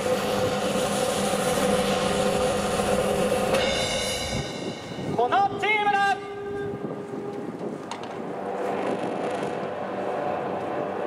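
Crowd noise and music over a loudspeaker system, broken about five seconds in by a loud rising shout as a winning team is named.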